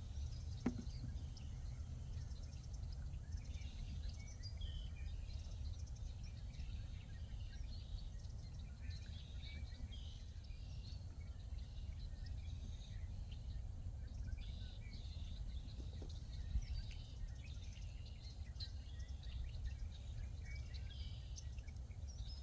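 Outdoor ambience: a steady low rumble under many short, scattered high chirps from birds and insects.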